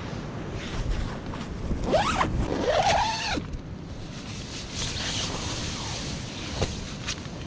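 Zip on a Berghaus Cairngorm 2 tent being run in two long pulls, its pitch sliding up and down, stopping sharply after about three and a half seconds; quieter fabric rustling follows.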